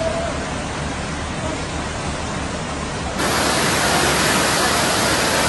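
Rushing floodwater: a steady, even roar of fast-flowing water that gets louder and fuller about three seconds in.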